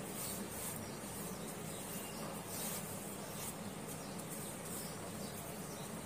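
Faint gritty rustling and rubbing as hands press a stuffed pomfret into a dry coating of semolina and rice flour in a steel plate, over a steady low hum.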